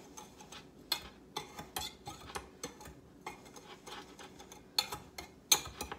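A spoon stirring dry powdered chili seasoning in a glass bowl: soft scraping with irregular clinks and taps of the spoon against the bowl, the sharpest about five and a half seconds in.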